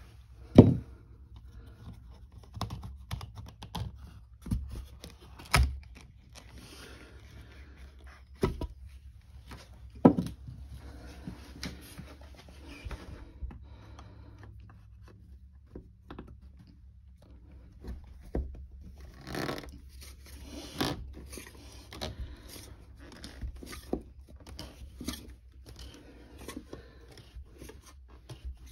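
UPVC glazing bead being prised out of a door panel with a flat tool: sharp plastic clicks and knocks as the bead snaps free, the loudest about half a second in, with scraping of the tool and bead in between.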